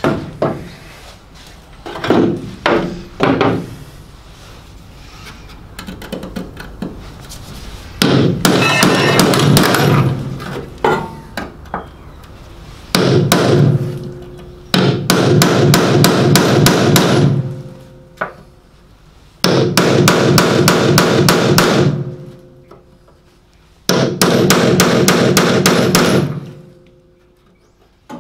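Hammer striking a hand-held tool against the sheet steel of a Morris Minor's engine bay, with a few separate knocks near the start and then five runs of rapid blows, each two to three seconds long. The panel rings under the blows.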